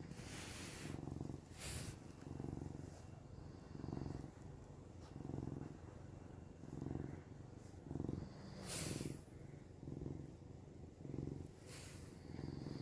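Cat purring close up, a steady rhythmic purr of just over one in-and-out cycle a second. A few short breathy snoring exhales from another sleeping pet break through, about half a second in, near two seconds, near nine seconds and near twelve seconds.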